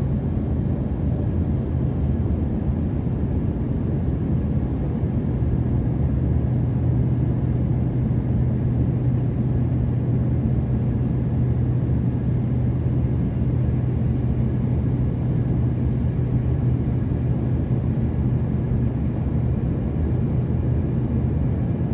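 Steady engine and air noise inside the cabin of an Embraer regional jet, an even rushing sound over a low hum. A faint high whine fades out about halfway through.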